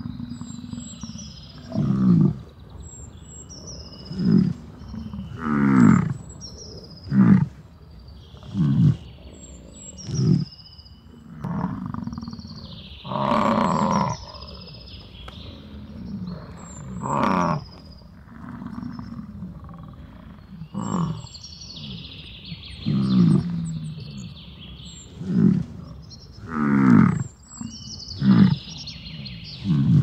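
Bison grunting and bellowing: low, drawn-out calls repeating about every one and a half to two seconds, several falling in pitch, with short high bird chirps between them.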